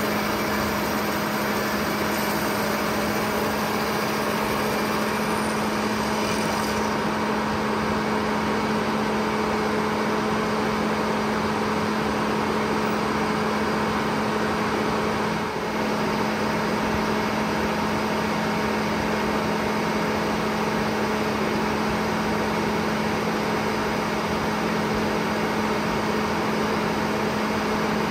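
An engine running steadily at one constant speed, with an unchanging hum and a slight dip in level about halfway through.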